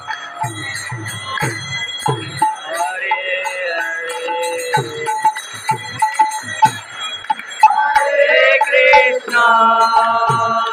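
Temple aarti: devotional singing with hand bells ringing and drum beats, the beats heaviest in the first two seconds.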